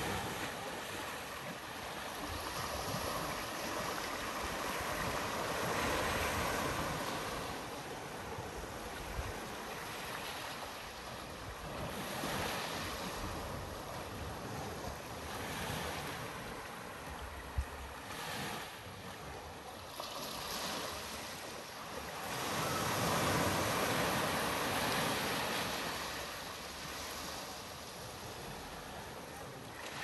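Ocean surf washing onto a sandy beach, the rush of the waves swelling and fading every several seconds. A single brief knock past the halfway mark.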